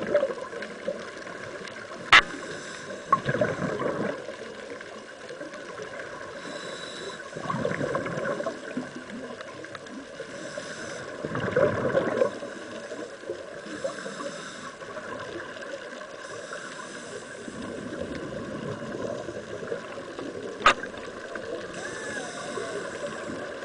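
Underwater recording of a scuba diver breathing through a regulator: a hiss on each inhale and a gurgling rush of exhaled bubbles about every four seconds. Two sharp clicks, one near the start and one near the end.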